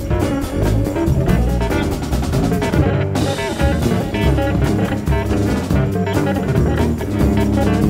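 Instrumental band music played live: an electric guitar and an electric bass guitar over a drum kit.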